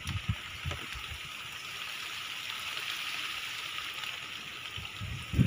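Steady hiss of light rain falling on a waterlogged crop field, with a few soft low thumps in the first second.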